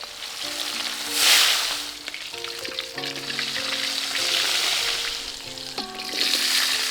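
Food frying in hot oil, a steady sizzle that swells louder about a second in and again near the end, over background music.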